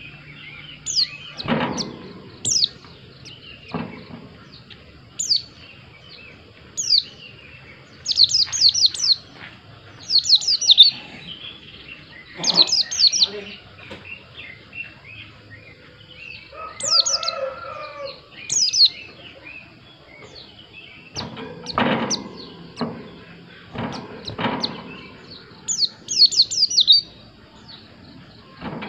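White-eye (pleci) singing: short, high, downward-sweeping chirps, singly and in quick runs of three to five notes, repeated every second or two. A lower, harsher call sounds about two-thirds of the way through, and a few sharp knocks come near the start and late on.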